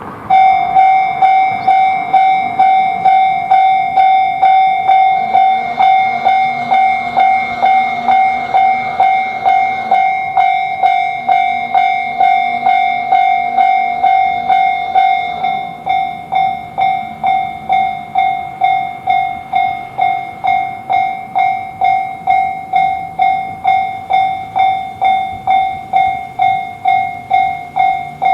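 Japanese railway level-crossing warning bell ringing its even 'kan-kan' rhythm, about two strokes a second, signalling an approaching train. It starts suddenly and drops somewhat in level about halfway through.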